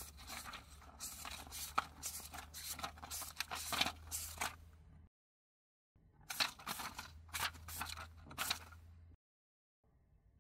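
Paper pages being turned: a quick run of crisp rustles and flicks lasting about five seconds, then dead silence, then a second run of about three seconds. A low steady hum sits under each run.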